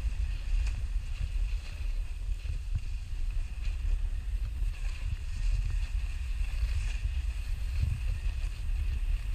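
Wind buffeting the microphone of a pole-mounted action camera in a steady low rumble, over the hiss of a snowboard sliding on packed snow.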